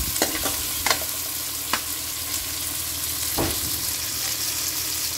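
Chopped onions sizzling steadily in hot mustard oil in a kadhai as the tadka base is fried, with a spatula knocking against the pan a few times while stirring.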